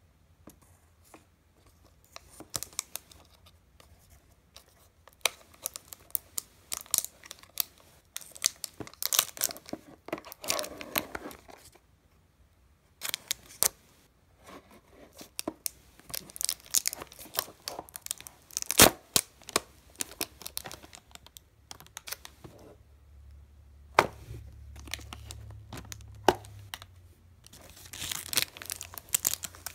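The cellophane wrap and cardboard box of a small action figure being torn open and handled, heard as irregular tearing, crinkling and crackling with sharp clicks. It pauses briefly about twelve seconds in, and there is one sharp snap, the loudest sound, a little after that.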